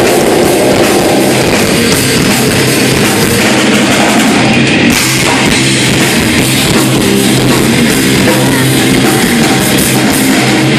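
Grindcore band playing live: distorted guitars and a drum kit, loud and dense with no let-up.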